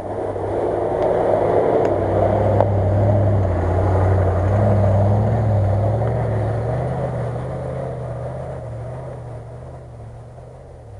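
Off-road SUV engine running steadily as the vehicle drives past on a snowy track, growing louder as it comes close and fading as it drives away.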